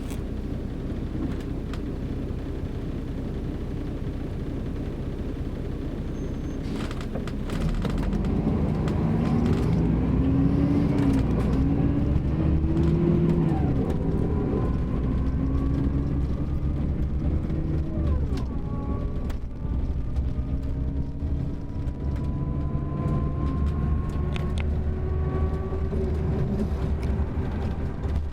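Mercedes-Benz OM-457LA inline-six turbodiesel of a double-decker coach with a ZF automatic gearbox: steady low rumble, then about seven seconds in it pulls harder and gets louder. Its pitch climbs, drops back at each automatic upshift, and climbs again as the bus gathers speed.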